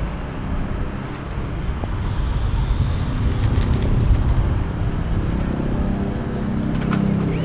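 Steady low outdoor rumble, with a faint high whine from an electric brushless RC motorcycle motor rising about three seconds in.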